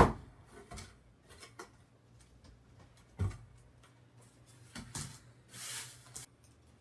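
Cardboard box and a white foam packing insert handled on a wooden table. A knock comes as it opens, thumps follow about three and five seconds in, and the foam gives a rubbing scrape just before six seconds.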